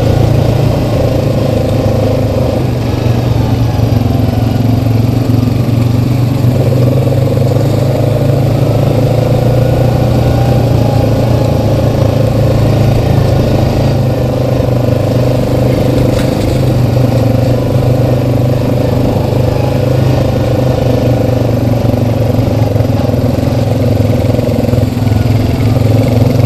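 Single-cylinder four-stroke ATV engine running steadily while riding along a dirt trail, its note shifting briefly a few seconds in and again near the end as the throttle changes.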